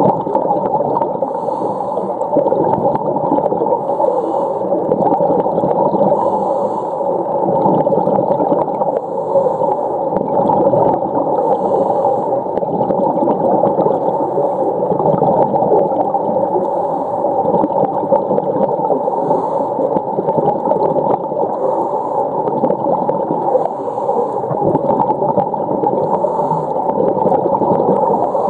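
Underwater recording: a steady, dense wash of water sound with humpback whale vocalizations heard through it.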